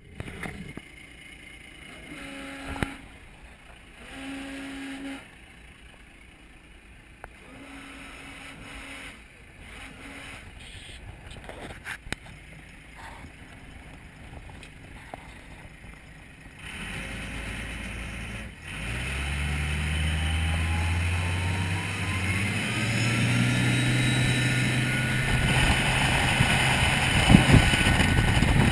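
Cummins 370 hp diesel engine of a Sea Vee 290 boat. For the first half it is quiet apart from a few short beeps. Then the engine comes up and accelerates with a rising whine, getting steadily louder, with water rushing and wind noise near the end.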